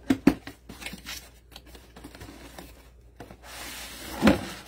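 Hands rummaging through a product box and its packaging: rubbing and scraping, with sharp knocks just after the start and again about four seconds in.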